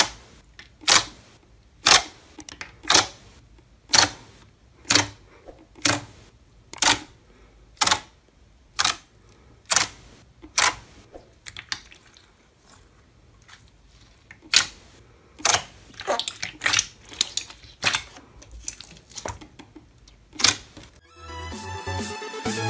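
Glossy slime pressed and squeezed by hand, giving sharp popping clicks as trapped air pockets burst: about one a second at first, quicker and less even later. Upbeat electronic music starts near the end.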